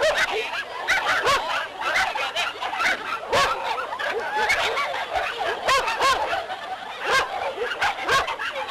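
Many dogs barking and yapping at once in short, overlapping calls, mixed with crowd chatter, with scattered sharp clicks.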